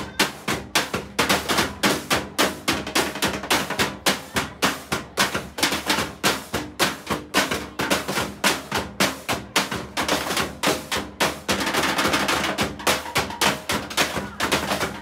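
Junk-percussion band drumming with sticks on plastic water barrels, traffic cones and scrap-metal objects: a steady beat of sharp hits, about three or four a second, that grows busier and denser a little past two-thirds of the way through.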